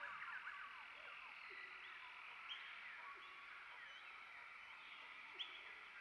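Faint outdoor chorus of small animal calls: many short chirps over a steady high trill, with a couple of sharper chirps about halfway through and near the end.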